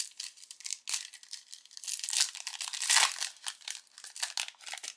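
Plastic wrapper of a trading-card pack crinkling as it is torn open: a dense run of crackles, loudest about three seconds in, with a sharp tick about a second in.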